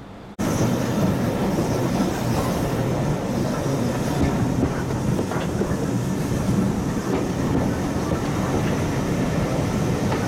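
A train running along the track: a steady, loud noise that starts abruptly just under half a second in.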